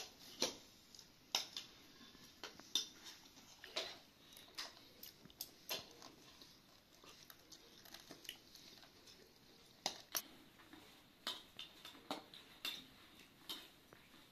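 Metal spoons and forks clinking and scraping against plates as several people eat, in irregular light clicks a second or so apart.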